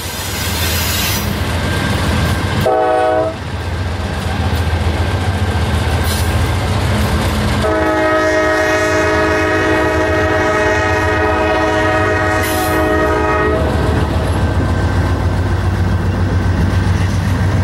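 Diesel freight locomotives passing close by, sounding a multi-chime air horn: a short blast about three seconds in and a long blast from about eight to thirteen and a half seconds, the closing short-and-long of a grade-crossing signal, over the rumble of the diesel engines. After the locomotives, covered hopper cars roll past with their wheels clicking over the rail joints.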